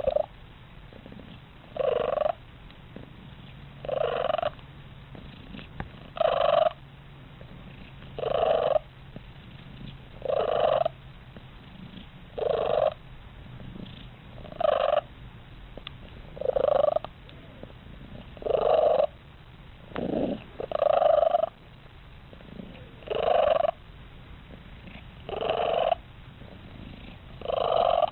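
A cat making a short, pitched vocal sound, evenly repeated about once every two seconds.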